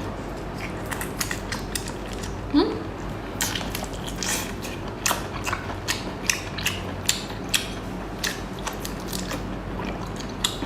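Chewing that crunches food between the teeth: irregular crisp clicks and cracks, one or two a second.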